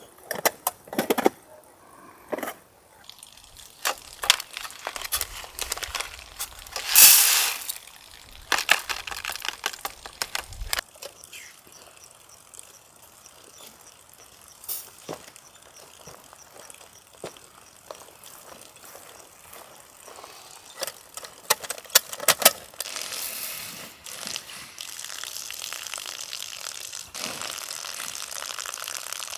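Scattered clicks, knocks and rustles of things being handled, with a louder rustle about seven seconds in. A steady hiss starts near the end.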